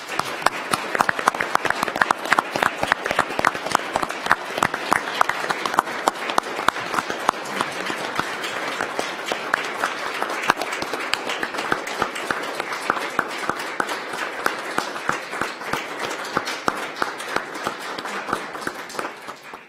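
Audience applauding: many hands clapping in a dense, steady patter that stops abruptly near the end.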